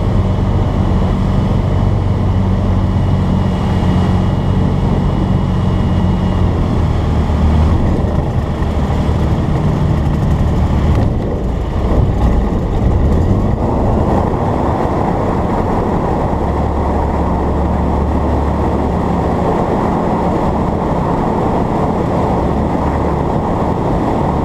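Light aircraft's piston engine and propeller running steadily under a heavy rush of air noise, with the engine note changing around seven seconds in and again between about eleven and fourteen seconds, then settling to a steady lower drone.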